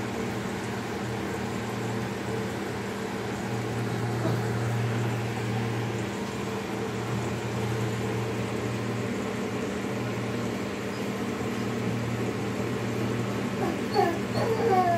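A steady low machine hum. Near the end, a few short rising and falling whines from an animal.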